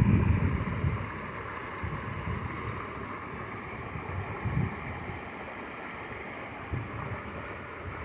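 Water spilling over a small rock cascade into a pond, a steady splashing hiss, with wind rumbling on the microphone in the first second and in a few brief gusts later.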